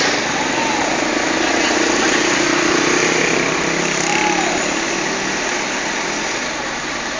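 Steady roadside traffic noise: vehicle engines running and tyres passing on the road.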